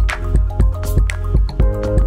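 Background music with a steady beat over a strong low bass.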